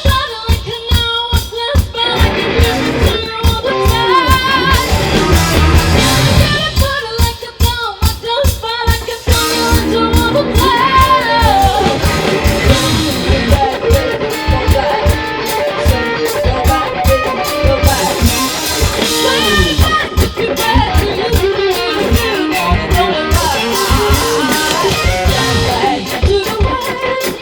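A rock band playing a song live: electric guitars over a drum kit, with wavering pitched lines that may be singing or guitar lead.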